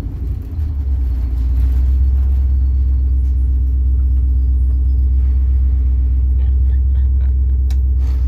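GM 5.3-litre LS V8 in a 1967 Clark Cortez motorhome running under way, a steady low drone heard from inside the cab. It dips briefly in the first second, then holds even, with a few light ticks near the end.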